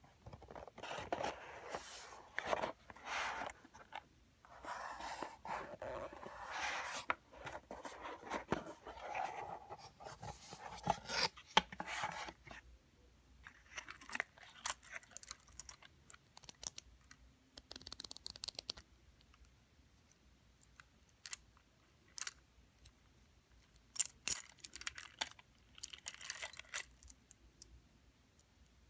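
Gold-tone metal chains and bracelets jangling and clinking as they are sorted by hand in a jewelry box. The handling is busy for the first twelve seconds or so, then breaks into scattered light clicks and short jingles.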